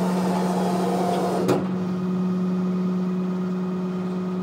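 Dennis Phoenix refuse truck's hydraulic rear packer running, a steady hum under mechanical noise as the packer plate sweeps through the hopper. A single sharp clunk about a second and a half in.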